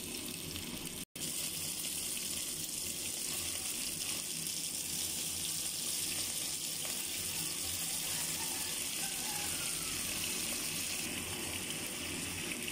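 Chicken wings and potato chunks sizzling in oil in a wok: a steady hiss that cuts out for an instant about a second in.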